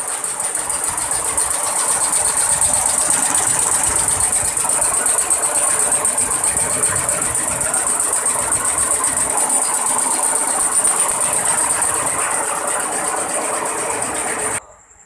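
Multi-head computerized embroidery machine stitching at speed: a fast, even mechanical clatter that builds up over the first couple of seconds, holds steady, and stops abruptly near the end.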